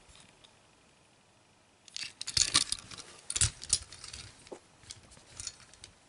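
Small 1:64 die-cast metal toy cars being set down and moved on a tabletop: a run of light clicks, taps and rattles starting about two seconds in, after near silence.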